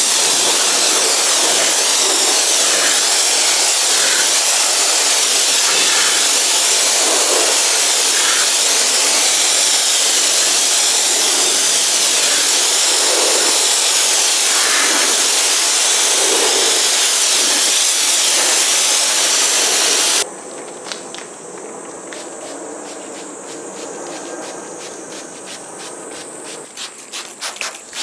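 Pressure-washer spray hissing steadily onto the car body, cutting off suddenly about two-thirds of the way through. Then come quieter rubbing strokes of hand scrubbing on the paint, repeating faster and more evenly near the end.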